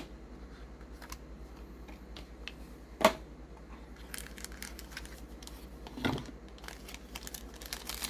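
A knife box and its packaging being opened by hand. There are sharp knocks at the very start, about three seconds in (the loudest) and about six seconds in, with light crinkling and ticking between them.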